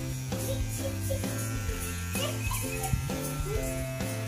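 Cordless electric hair trimmer buzzing as it is run over the stubble along the cheek and jaw, under background music.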